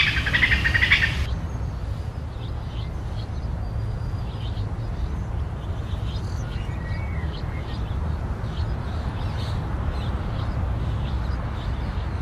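Rapid high chirping, loud for just over a second at the start and then cutting off. After that, scattered faint short chirps continue over a steady low rumble.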